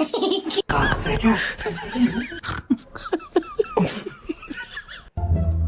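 People's voices and laughter in short bursts, cut off abruptly about five seconds in, where music with plucked string notes takes over.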